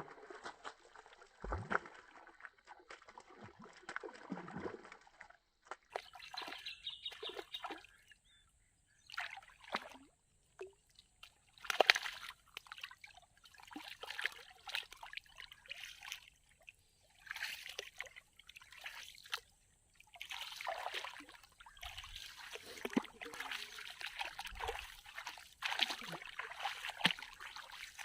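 Water splashing and sloshing in irregular bursts with short pauses between them, with one sharper splash about twelve seconds in.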